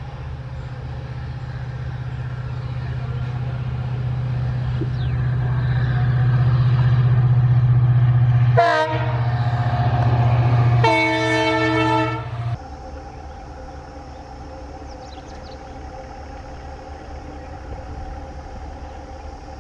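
EMD WDP-4 diesel locomotive's engine running under load as it approaches, growing louder, with two horn blasts, a short one and then a longer one about two seconds later. After a sudden drop, a quieter, steady sound of a distant diesel locomotive hauling a tanker train up a gradient.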